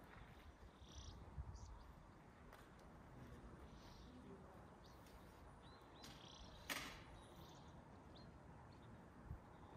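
Near silence: faint outdoor ambience with a low rumble of wind on the microphone and soft chirps now and then. There is a single sharp click a little before seven seconds in.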